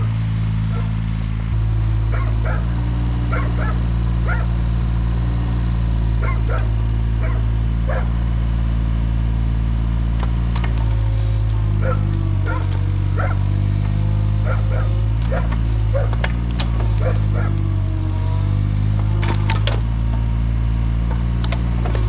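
Mini excavator's diesel engine running steadily, its pitch dipping and rising as the hydraulics take load. Repeated short, sharp sounds come over it throughout.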